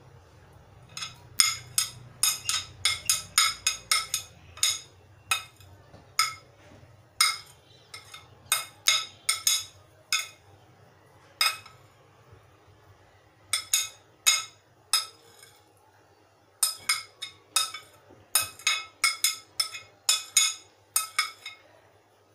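Metal spoon tapping and scraping against a glass plate and glass mixing bowl, a run of sharp ringing clinks in quick clusters with short pauses between, as chopped vegetables are knocked off the plate into the bowl.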